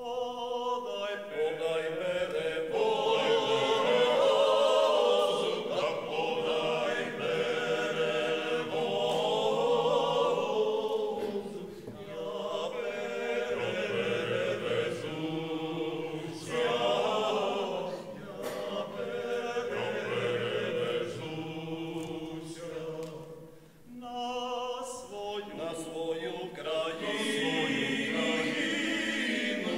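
Male folk vocal group singing a folk song in several voices, unaccompanied, in long phrases with short breaks between them, about twelve and twenty-four seconds in.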